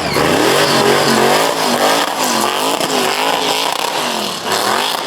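Burnout car's engine revving hard, its pitch rising and falling in quick repeated sweeps over a continuous rush of noise from the spinning tyres.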